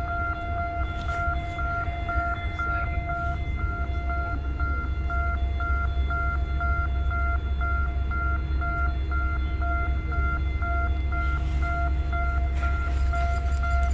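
A steady low rumble under a high electronic beep that repeats rapidly and evenly.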